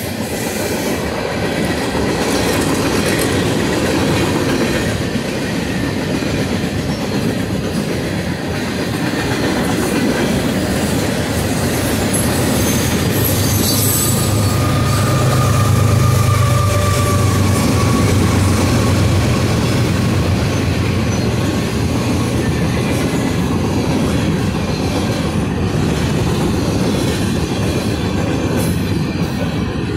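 CSX freight train of tank cars, boxcars and gondolas rolling past: a steady loud clatter and rumble of wheels on the rails, with a brief high screech near the middle and a low hum that swells and fades through the middle.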